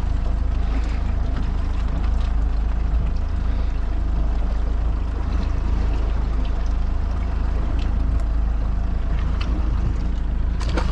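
Fishing boat's engine running steadily, a deep, even drone.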